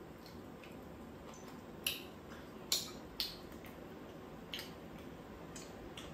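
A few sharp, separate clicks of metal chopsticks against the pan and bowls during a meal, about four in a few seconds, over a low steady background.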